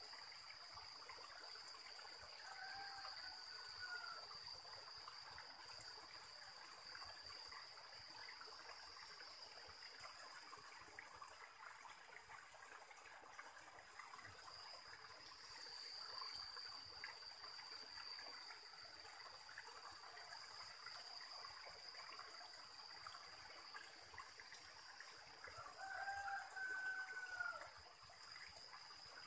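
A rooster crowing faintly twice, about three seconds in and again near the end, each an arched call about a second and a half long. Under it a steady high insect drone and the trickle of a stream.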